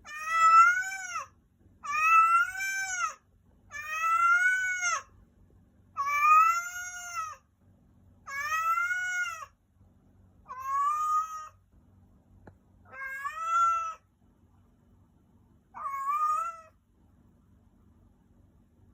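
Maine Coon cat meowing repeatedly in long drawn-out calls, eight in all, each rising and then falling in pitch, about one every two seconds. The owner wonders whether the cat is in heat.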